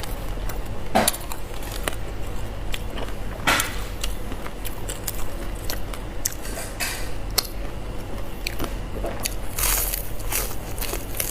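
Close-miked eating: biting and chewing crisp fried pork intestines, with scattered crunches and sharp clicks.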